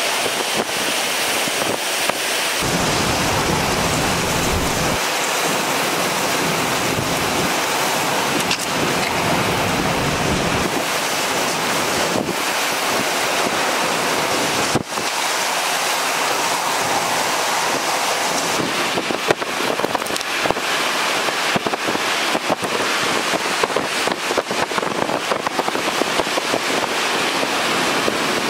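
Hurricane Ian's wind and driving rain: a steady, loud rush of storm noise, with spells of low rumble where gusts buffet the microphone. Scattered sharp ticks come in the last third.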